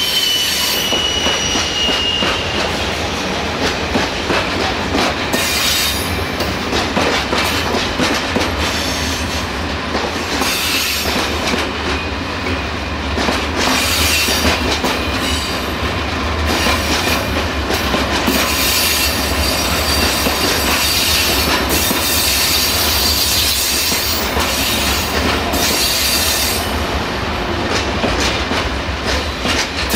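Freight train of covered hopper wagons rolling past, wheels clattering over rail joints in a steady run of clicks. A high wheel squeal sounds in the first couple of seconds and fainter squeals come and go later.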